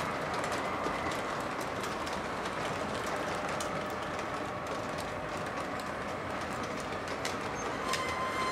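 O gauge three-rail model freight train rolling past on its track: a steady rolling rumble of wheels on the rails, with irregular clicks as the cars cross rail joints. A short, high steady tone comes in near the end.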